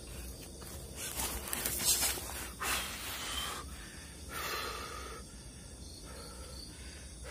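A man breathing heavily: several loud, gasping breaths in and out between about one and five seconds in, the heavy breathing of strain.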